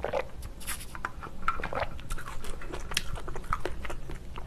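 Close-miked eating sounds: a woman chewing a mouthful of bibimbap, with wet mouth clicks and smacks and a few sharper clinks of a spoon against a stainless steel bowl.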